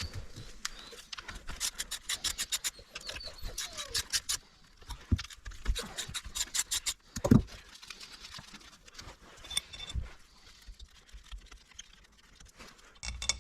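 Ratchet wrench clicking in quick runs as bolts are backed out of a water pump, with light scraping of metal parts and a single thump about seven seconds in.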